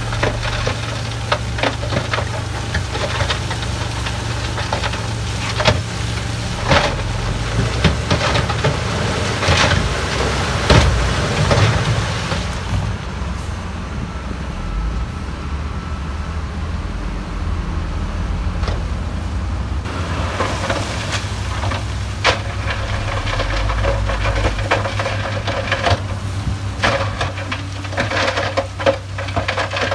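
Diesel dump truck engines running as the trucks raise their tipper beds, with loose rock clattering and knocking as the loads shift and slide out.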